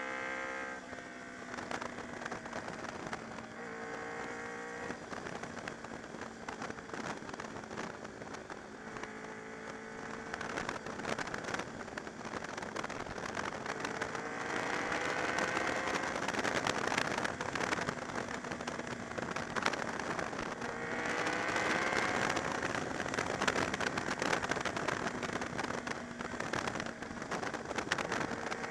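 Honda VFR V4 motorcycle engine pulling through a run of bends: its pitch drops off about a second in, then climbs several times as the throttle opens out of the corners, most strongly about halfway through and again about three-quarters of the way in. Heavy wind buffeting crackles on the bike-mounted microphone throughout.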